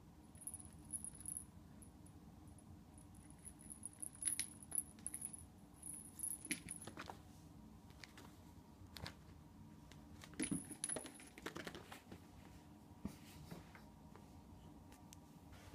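A small bell on a kitten's toy jingling faintly in short, repeated bursts as the kitten bats and chews it, with scattered light taps and scuffs.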